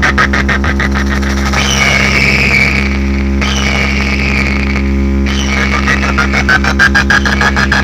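Heavily distorted electronic DJ remix music: a very fast pulsing beat over a constant deep bass tone. The beat drops out in the middle for two falling synth sweeps, then comes back.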